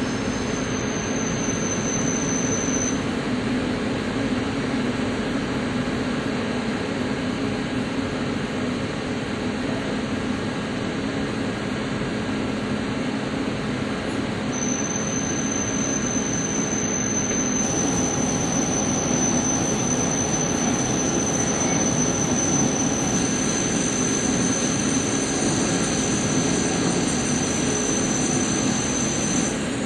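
Lathe grooving a 42CrMo4 steel workpiece with a Walter carbide grooving insert: a steady, dense cutting noise with a thin high-pitched squeal that holds for the first few seconds and again from about halfway to near the end.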